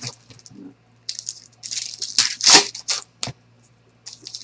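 Foil trading-card packs being torn open and crinkled by hand: short bursts of crackling foil, busiest from about a second in, with a brief lull before more starts near the end.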